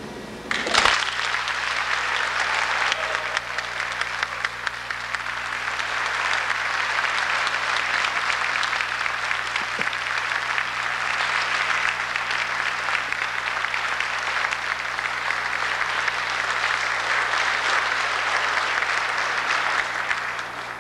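Audience applauding, a dense, sustained round of clapping that starts abruptly about half a second in and dies away near the end.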